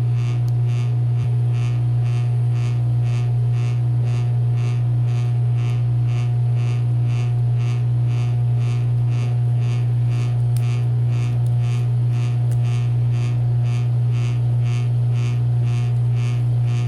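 CREWORKS electric wire stripper's single-phase motor running steadily with a strong, even hum and a faint pulsing about three times a second.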